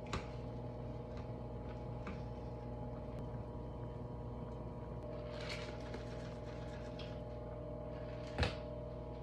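Wire whisk scraping and clicking in a pot of simmering Alfredo sauce over a steady mechanical hum, with one sharper knock near the end.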